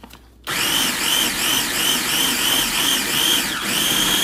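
Small electric food processor switched on about half a second in and running, chopping onions, garlic chives, chilies and thyme into a chunky paste. Its whine rises and falls about three times a second as the mixture tumbles, with a brief dip shortly before the end.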